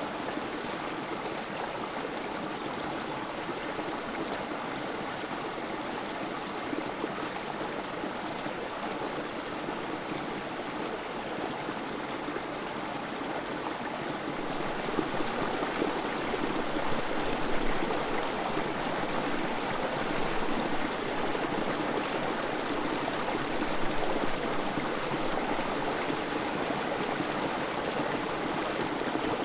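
Small creek trickling and splashing over a rock ledge into a pool: a steady flowing-water sound that grows slightly louder about halfway through.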